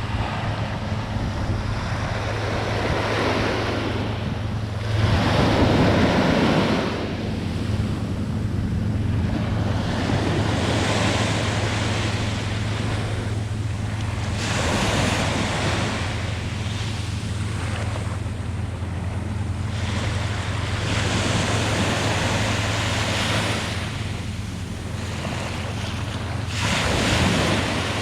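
Sea surf breaking on a beach, waves swelling and washing in one after another every few seconds; the biggest break comes about five seconds in and another near the end.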